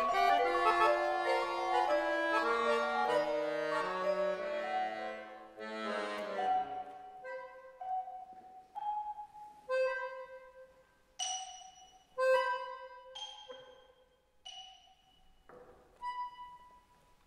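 Accordion and marimba playing contemporary classical music. Dense held accordion chords with moving lines thin out after about six seconds into sparse, separate accented notes, each starting sharply and dying away.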